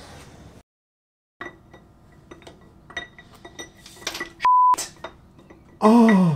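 Small metallic clicks and clinks of hand tools and a socket on the Mini A-Series engine's timing end, followed about four and a half seconds in by a short, loud, steady electronic beep, and near the end a man's brief exclamation falling in pitch.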